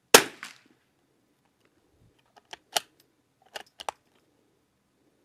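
A single .22 LR shot from a Christensen Arms Ranger 22 bolt-action rifle, followed by a short echo. About two seconds later come two quick groups of sharp metallic clicks as the bolt is worked to eject the case and chamber the next round.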